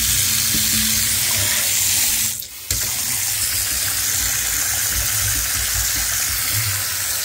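Running water splashing into a mould-covered bathtub and over a hand scrubbing at its surface, steady apart from a brief drop about two and a half seconds in.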